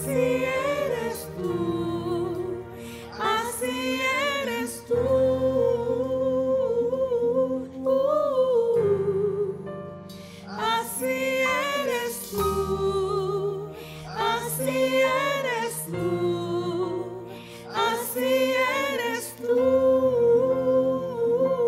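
Music: a slow worship song, with sung vocal lines rising and falling in long phrases over a band accompaniment of sustained bass notes that change every few seconds.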